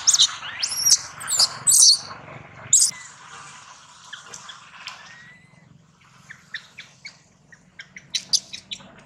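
Baby long-tailed macaque screaming in distress: several shrill, arching screams in the first three seconds, then quieter short high squeaks near the end.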